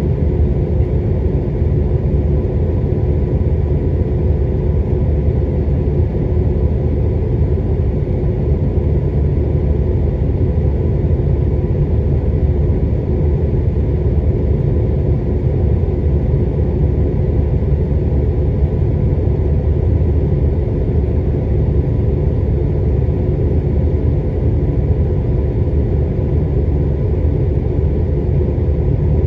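Car idling at a standstill, heard from inside the cabin: a steady low rumble with a faint constant hum over it.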